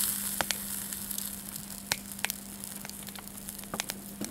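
Bone-in lamb chops sizzling on a wire grill net over charcoal, a steady hiss with fat popping now and then.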